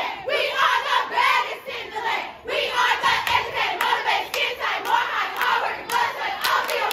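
A group of women's voices chanting together. From about three seconds in, sharp hand claps come in a steady rhythm of about two a second.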